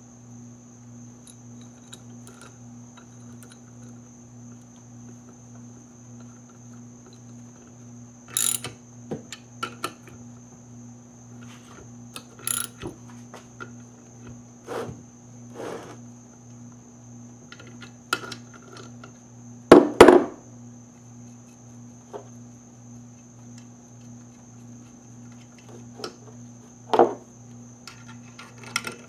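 Scattered metallic clicks and taps as a wrench turns the nut on a bolt-on LS valve spring compressor clamped to the cylinder head. These sit over a steady low hum and a faint high whine, with one louder metal clunk about two-thirds of the way through.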